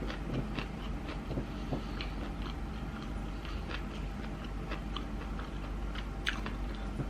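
Close-up chewing of sushi: soft, irregular wet mouth clicks, with one sharper click about six seconds in.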